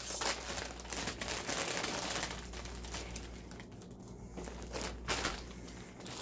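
Crinkling of a big plastic snack bag of Andy Capp's Hot Fries as a hand rummages in it and moves it. The crinkling comes on and off, quieter for a second or so past the middle and picking up again as the bag is lifted and set down.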